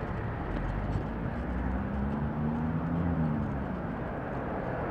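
Street traffic heard from a moving bicycle: a steady rush of road and traffic noise, with a passing vehicle's engine hum rising and then falling in pitch through the middle.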